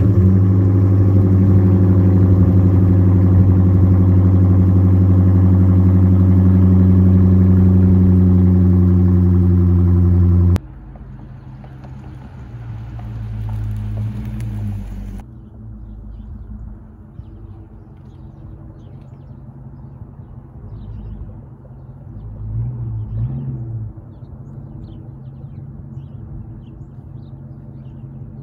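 Dodge Charger R/T's 5.7 HEMI V8 running at a steady, loud cold-start fast idle, which breaks off suddenly about ten seconds in. After that the same car is heard more quietly at a distance, its exhaust rumble swelling twice as it drives.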